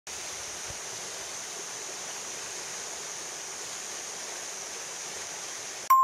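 Small mountain stream running over rocks: a steady rush of water. Right at the end a loud, bright chime note strikes.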